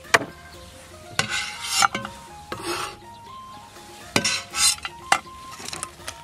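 A cleaver chopping cooked goose on a wooden cutting board: several sharp chops, with scraping in between as the chunks are scooped up on the blade and slid into a pot.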